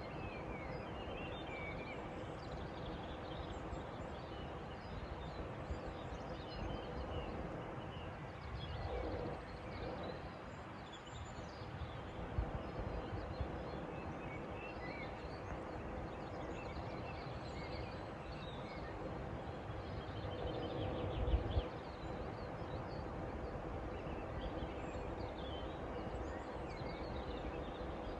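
Evening outdoor ambience: scattered small bird chirps over a steady low background hum, with two brief low swells, one about a third of the way in and one about three quarters through.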